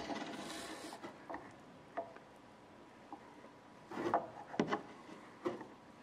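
Quiet handling noise on a workbench: a soft scrape at the start, then a few small taps and knocks of wood and metal, a little cluster of them about four seconds in.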